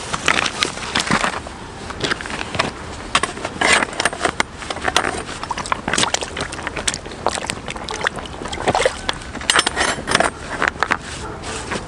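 Rubber boots crunching and shifting on loose river stones and splashing in shallow water, with knocks and clatter from a folding metal seat frame being set down among the stones; the sound is a string of irregular knocks and scrapes.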